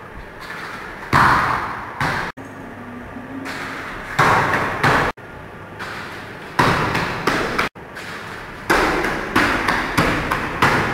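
Bare feet and hands thudding onto foam floor mats during tumbling moves such as round-offs and back handsprings: a string of sudden thuds, each with a short echo in the bare room, coming closer together near the end.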